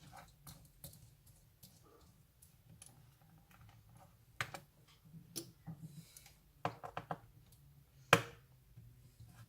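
Irregular clicks and taps from hands and tools working on the casing of a Fujitsu Lifebook U772 laptop as it is taken apart. There is a quick cluster of clicks and one sharper click near the end, over a faint low hum.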